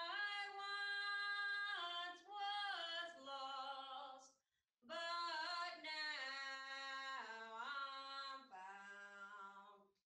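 A woman singing a slow melody unaccompanied, in long held notes that step down in pitch, pausing briefly for breath about halfway through and again near the end.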